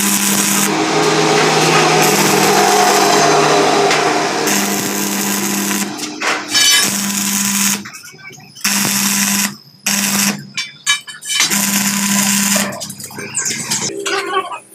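Stick (arc) welding of steel scrollwork with an IGBT inverter welder. The arc crackles and hisses steadily for about six seconds, then comes as several short bursts, one to two seconds each, each cut off abruptly as the rod is lifted.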